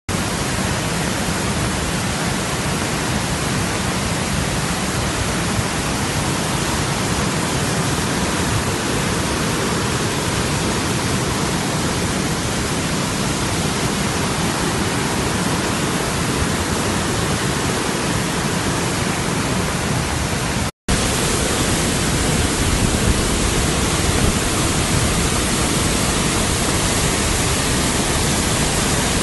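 Waterfall swollen by heavy rains, its water falling and rushing as a loud, steady roar of noise. The sound breaks off completely for a split second about two-thirds of the way through.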